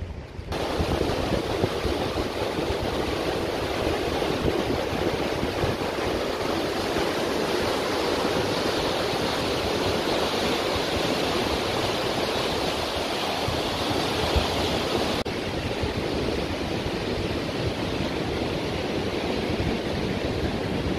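Fast-flowing mountain river rushing over rocks, a steady even noise that shifts slightly in tone about fifteen seconds in.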